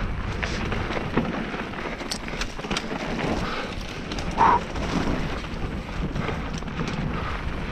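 Mountain bike descending a dirt singletrack: steady tyre noise over dirt and leaves with wind on the microphone, and frequent clicks and rattles from the bike over bumps. A brief louder noise about halfway through.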